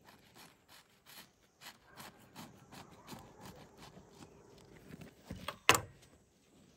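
Knife sawing through a large round homemade loaf of bread in repeated short strokes, followed by one sharp knock near the end.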